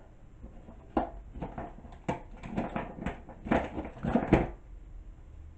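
Painted wooden clothespins clicking and clacking as they are handled and clipped onto a wire wreath frame: an irregular string of short clacks, the sharpest about a second in and a cluster between three and four and a half seconds.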